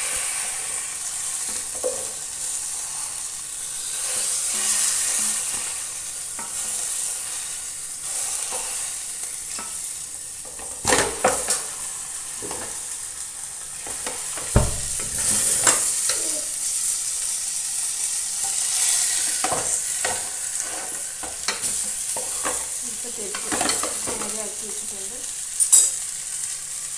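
Whole masala-marinated chicken frying in ghee in a wide metal pan, a steady sizzle. A wooden spatula and metal tongs scrape and knock against the pan as the chicken is turned, with a few sharp knocks about halfway through and near the end.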